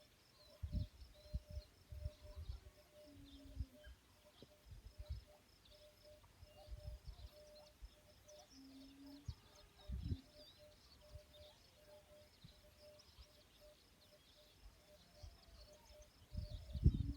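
Faint birdsong: many small high chirps, over a steady pulsing lower call and a few scattered low rumbles.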